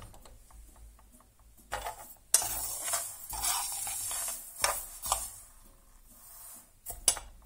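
Metal spoon stirring a panful of freshly toasted sesame seeds, the seeds swishing and scraping across the pan in several strokes, with a couple of sharper knocks about two-thirds of the way in and near the end.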